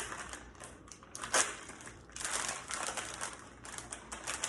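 Crinkling and crackling handling noise, a run of quick crackles with a sharper, louder one about a second and a half in.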